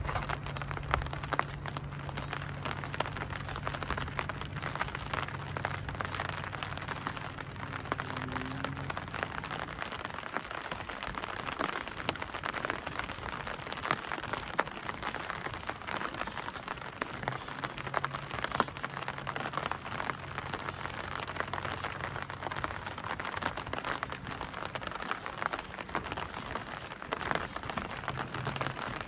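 Steady rain pattering, a dense spread of small drop ticks. A low steady hum runs under it for the first third and again through the second half.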